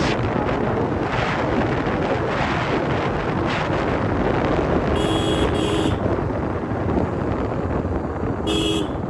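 Royal Enfield Classic 350's stock single-cylinder engine running on the move, under heavy wind noise on the microphone. A horn beeps twice in quick succession about five seconds in and once more near the end.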